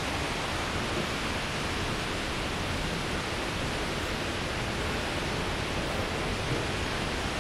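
Steady rushing of a waterfall, an even roar of falling water, with a few faint clicks now and then.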